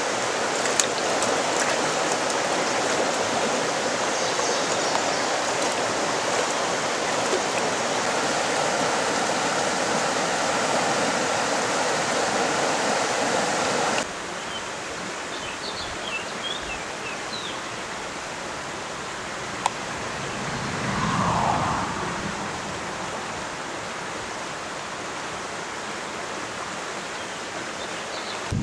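Steady rush of flowing stream water. About halfway through it cuts to a quieter outdoor background with a few faint high chirps and one brief swell.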